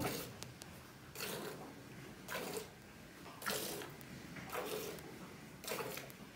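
Milk squirting from a cow's teat into a steel pail during hand milking: a short hissing spurt about once a second, six in all.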